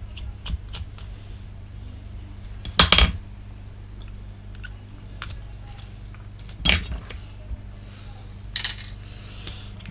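Small clicks and clinks of a screwdriver and tiny screws on the plastic parts of a PS5 controller during disassembly, with three louder clattering knocks: about three seconds in, near seven seconds and near nine seconds.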